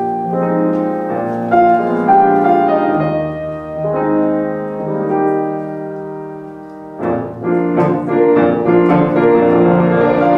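Solo grand piano playing a slow melody over sustained chords. The playing fades down about six seconds in, then comes back with fuller, louder chords.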